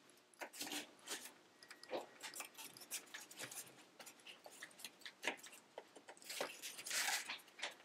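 Faint, irregular clicks and short rustles of rattan reed being handled and worked through a woven basket rim, with a longer scraping rustle about seven seconds in.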